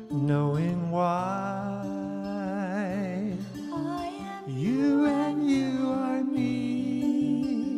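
A woman singing a slow song with vibrato, accompanied by acoustic guitar.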